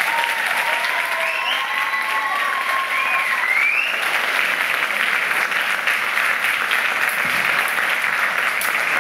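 Audience applauding steadily, with a few voices calling out over it in the first few seconds.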